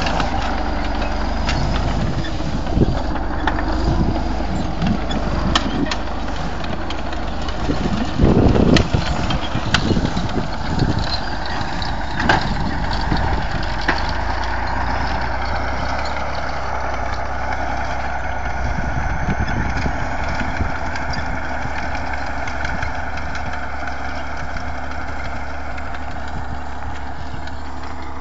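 T-150 crawler tractor's diesel engine running steadily under load while pulling a multi-furrow plough, with a few louder thumps in the first half.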